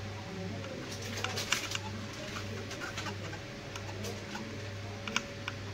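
Scattered light clicks and taps of hands and small tools working on a circuit board, in two short clusters, over a low steady hum that pulses about once a second.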